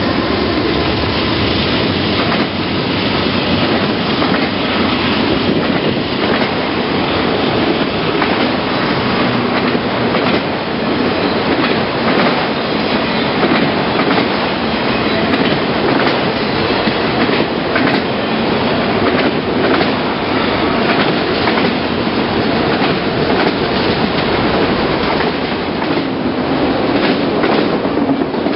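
Freight train cars, autoracks and double-stack container cars, rolling past close by: a loud, steady rumble of steel wheels on rail with irregular clicks over the rail joints.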